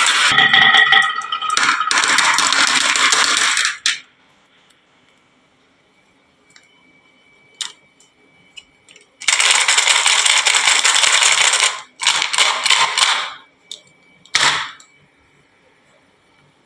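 Marbles rolling and clattering down a wooden marble run in two dense bursts of rattling a few seconds long, separated by a quiet gap with a few scattered ticks, and a single sharp clack near the end.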